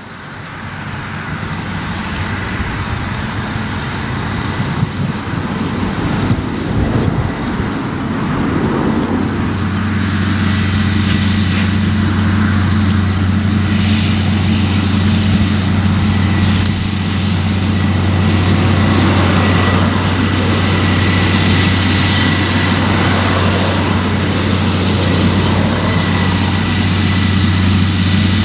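Caterpillar Challenger 35 rubber-tracked tractor's diesel engine working under load as it pulls a cultivator through stubble. It grows louder over the first ten seconds as the tractor comes close, then holds a steady drone with a faint high whine.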